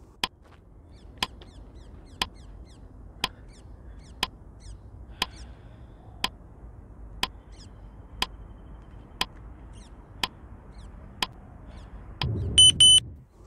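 Countdown timer sound effect ticking once a second, with sharp evenly spaced clicks. It ends with two short high beeps just before the count runs out.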